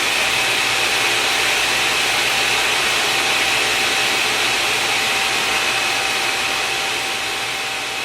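A high-speed electric motor running steadily, a whine over rushing air. The level tapers off near the end.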